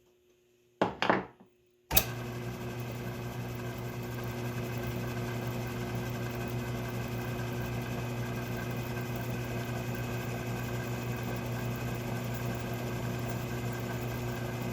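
A Myford ML7 metalworking lathe running steadily with an even motor and belt hum. After a couple of knocks, it starts abruptly about two seconds in.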